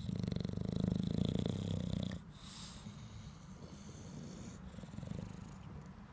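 Bulldog snoring. A loud, fluttering snore lasts about two seconds, then the snore stops abruptly and a quieter breath follows. A softer snore comes near the end.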